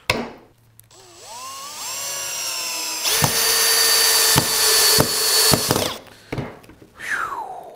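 Makita XPH14 18V brushless hammer drill spinning up with a rising whine, then driving a 3-inch drywall screw into wood under heavy load for about three seconds, with a few sharp clicks, before stopping.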